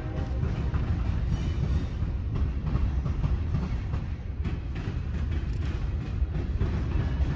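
Union Pacific mixed freight train rolling past: a steady, loud rumble of steel wheels on rail, with scattered clicks and clanks.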